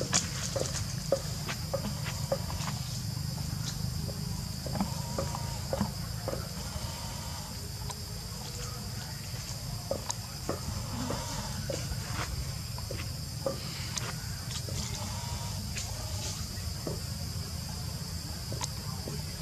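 Steady high-pitched drone of an insect chorus in tropical forest, over a constant low rumble, with scattered sharp clicks and rustles throughout.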